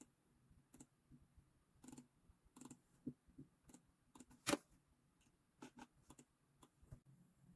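Faint, irregular small clicks and taps, with one sharper tap about four and a half seconds in.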